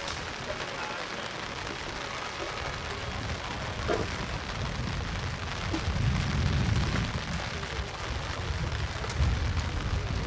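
Steady outdoor hiss with wind buffeting the microphone, the low rumble growing stronger from about six seconds in. A single brief thump about four seconds in.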